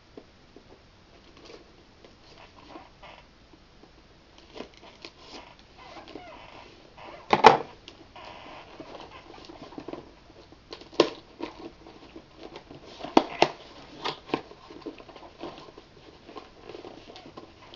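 Cardboard box and packaging being handled and opened by hand: scattered rustling and light taps, with one louder knock about seven and a half seconds in and a few sharper clicks a few seconds later.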